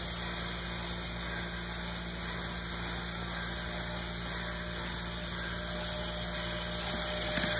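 HO scale Auscision Tangara model electric train running along the track: a steady low hum and hiss that grows louder near the end as the train comes close.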